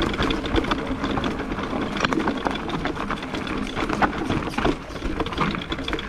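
Electric mountain bike rolling down a rocky trail of loose stones, its tyres crunching over the rocks and the bike rattling with a fast, steady clatter of small knocks.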